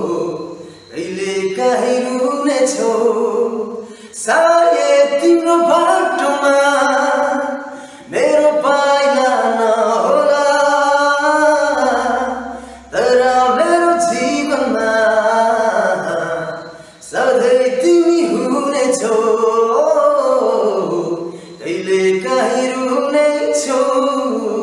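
A young man singing a song unaccompanied, in phrases of about four seconds with short breaks for breath between.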